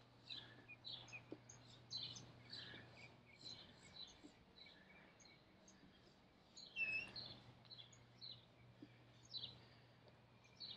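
Small birds chirping faintly, many short chirps scattered through, one a little clearer about seven seconds in, over a faint low steady hum.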